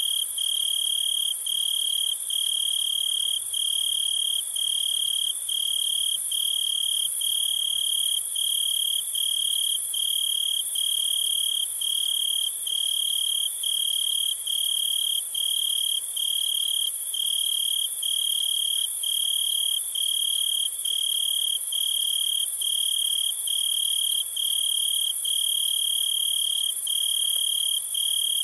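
Crickets chirping: a high trill broken into even pulses about every half second, over a continuous high hiss of insects.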